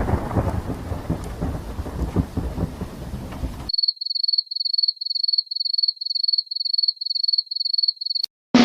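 Thunderstorm with heavy rain and rumbling thunder, cut off abruptly about a third of the way in. It gives way to a quick run of high-pitched electronic beeps, two or three a second, with a click at the end.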